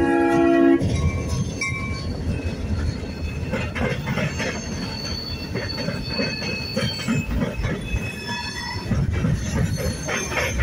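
Norfolk Southern diesel locomotive's air horn sounding a chord of several notes, cutting off about a second in. Then the locomotives and the first steel coil cars roll past close by, with a low rumble, wheel clanks and a high-pitched wheel squeal in the middle.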